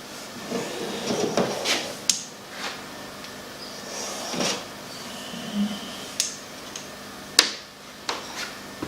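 Scattered light knocks, clicks and clatter of objects being handled, with one sharper knock about seven and a half seconds in.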